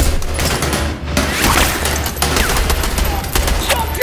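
Firefight gunfire: rapid, overlapping shots from several guns, fired in dense volleys.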